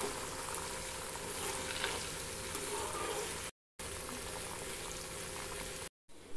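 Mushroom pieces in a corn flour and rice flour batter deep-frying in hot oil, a steady sizzle. The sound cuts out completely twice, briefly.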